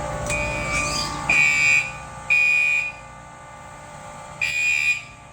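Carbon monoxide monitor alarm sounding: loud, high-pitched electronic beeps, each about half a second long and about a second apart, with a longer pause about 3 seconds in. It is going off because the CO reading has passed the monitor's 100 ppm alarm threshold.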